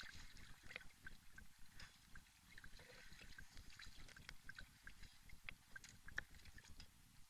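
Campfire crackling faintly: irregular sharp pops and snaps from burning wood, one louder pop about six seconds in.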